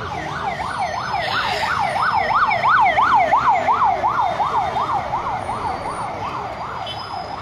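Ambulance siren in fast yelp mode, a wailing rise and fall about three times a second. It grows louder to about three seconds in, then fades.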